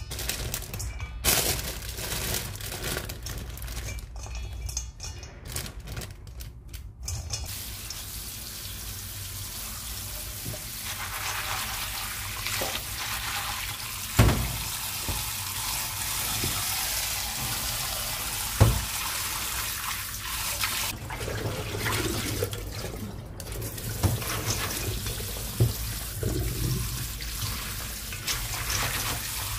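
Soybean sprouts rustling and crackling as they are handled in a stainless steel bowl. From about a quarter of the way in, tap water runs steadily into the bowl in a stainless steel sink as the sprouts are rinsed. Two sharp knocks come a few seconds apart around the middle.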